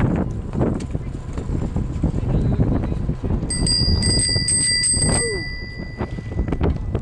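Bicycle bell rung in a quick run of about seven or eight strikes, its tone ringing on for a second or so after the last one. A steady low rumble of wind on the microphone runs underneath.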